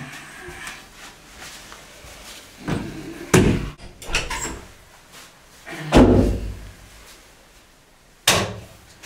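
Interior doors being handled, opened and shut, with a few knocks and heavy thuds: a heavy thud about three seconds in, another about six seconds in, and a sharp slam near the end.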